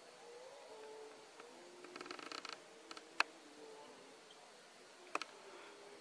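Faint forest ambience with distant low bird calls, broken by a short rapid rattle about two seconds in and two sharp clicks, one near the middle and one near the end.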